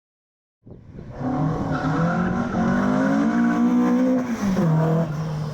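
Car engine revving hard. It cuts in sharply about half a second in, its pitch wavers while held high, and it drops away near the end.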